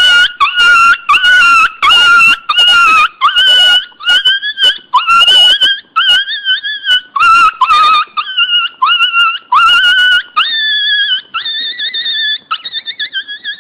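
Dog whining in a string of high-pitched cries, about one or two a second, with sharp yelping onsets in the first half and longer, smoother whines near the end.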